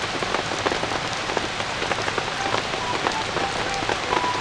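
Steady rain, a dense patter of raindrops hitting the surfaces around.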